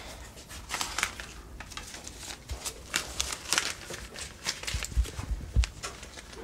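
Crinkling and rustling of something being handled, in many short irregular crackles, with a few dull low thumps about five seconds in.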